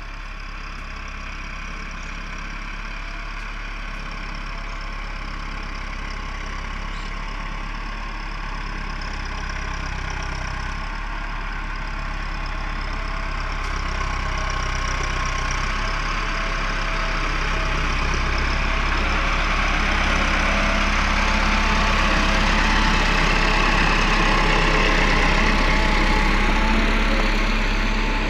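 Farm tractor's engine running steadily as the tractor drives over loose soil, growing louder as it draws near.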